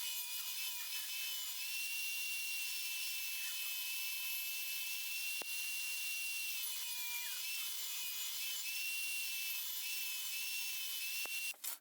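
A power tool running steadily on wood, a hissing sound with a high whine that sags briefly a few times as it works. It cuts off just before the end.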